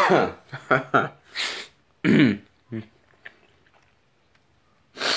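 A man's wordless vocal reactions to an intensely sour taste: several groans falling in pitch and breathy exhales in the first few seconds, then quiet until a short breath near the end.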